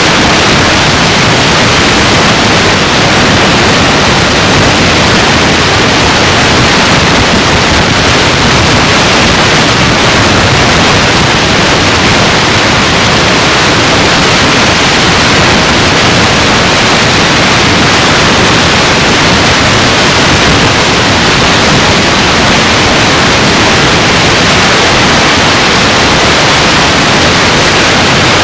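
Loud, steady static hiss, even and unbroken, with no voice or other sound heard through it.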